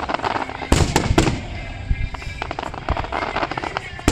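Aerial fireworks shells bursting: several sharp bangs, the loudest cluster about a second in, with crackling between them.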